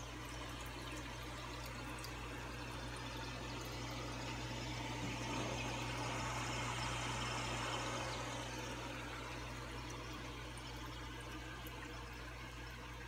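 Aquarium air stone bubbling in a steady, dense stream, over a steady low hum. The bubbling grows louder around the middle and eases off again.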